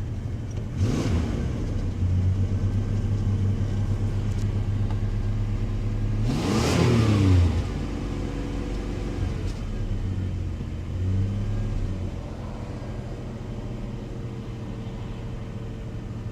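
The 2.8 L V6 of a 1993 Chevy S10 running, revved up briefly about a second in and again more strongly around the middle, then settling back to a steady idle.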